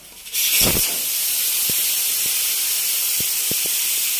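Air hissing steadily out of a car tyre through its open valve as the tyre is deflated. The hiss starts suddenly about a third of a second in, with a short low thump just after it and a few faint clicks.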